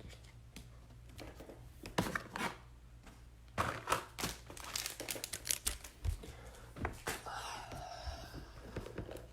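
Plastic packaging crinkling and tearing as it is handled, in irregular short bursts with quieter gaps between.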